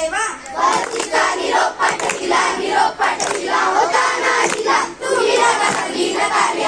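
A group of children singing loudly together in short phrases, with hand claps through it.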